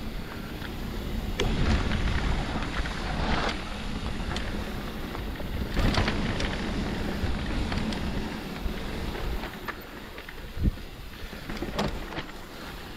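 Mountain bike in motion on a muddy trail: a steady rumble of tyres and wind on the microphone, with scattered clicks and knocks from the bike.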